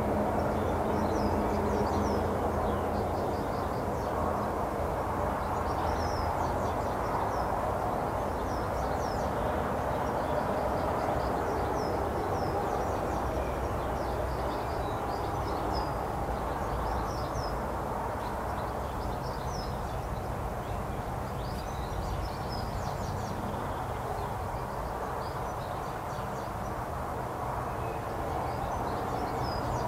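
Small birds chirping in short, high calls scattered throughout, over a steady low background rumble.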